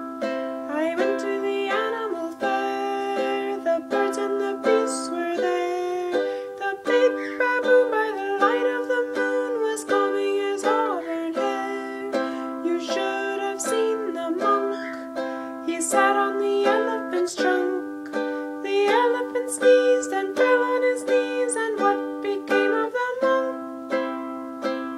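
Ukulele strummed in a steady rhythm, playing chords in C with a change of chord every few seconds.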